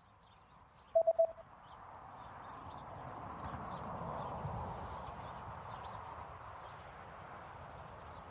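Three quick electronic beeps about a second in, then a background outdoor ambience track fades in: a steady murmur with small birds chirping.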